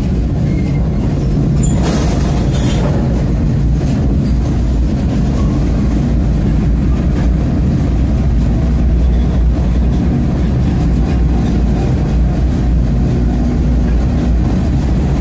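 Freight train rolling, heard from the end platform of a covered hopper car: a steady, loud, low rumble of the wheels and car on the rails, with a brief louder clatter about two seconds in.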